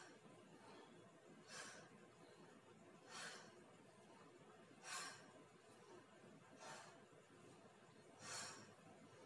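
Faint, rhythmic breaths of a woman exercising, one short exhalation about every second and a half to two seconds, five in all, in time with her wall push-ups.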